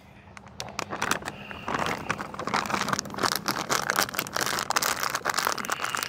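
Plastic bag crinkling and rustling with many small crackles as it is handled and shaken, working milk over the fish inside it.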